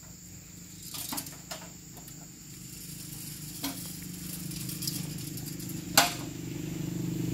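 A steady low engine hum that slowly grows louder toward the end, with a few light metallic knocks and clicks as an aluminium ladder is handled; the sharpest knock comes about six seconds in.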